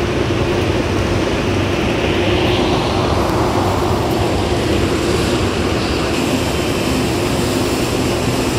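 N700S Shinkansen trainset alongside the platform, giving off a steady hum and rush of noise from its onboard equipment.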